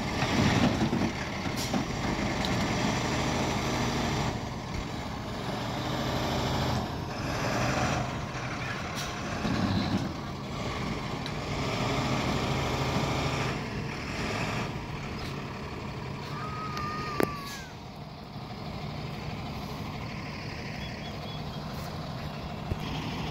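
Flatbed tow truck's engine running steadily, with a few scattered knocks and a brief high tone about seventeen seconds in.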